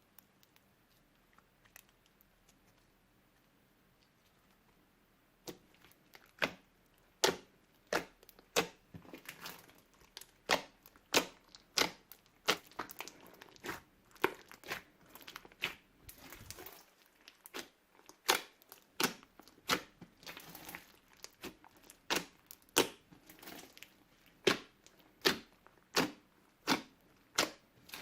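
Hands kneading and folding slime, with sharp pops and crackles as trapped air bursts, about one or two a second. The popping starts about five seconds in, after a quiet start.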